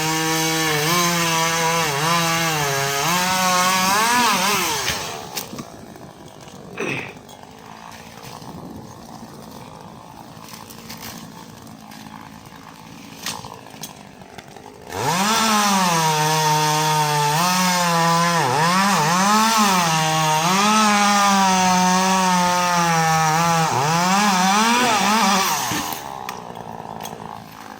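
Echo CS-400 two-stroke chainsaw cutting wood at high revs in two bouts: one at the start lasting about four seconds, then a quieter stretch, then a second bout of about ten seconds from about halfway through. Its pitch dips and recovers as the chain loads up in the cut.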